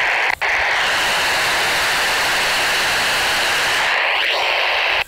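Loud, steady FM receiver static from a Baofeng UV-5R handheld on the SO-50 satellite downlink, with a very short dropout about half a second in. The satellite is only about 2° above the horizon, so the weak downlink is buried in the hiss.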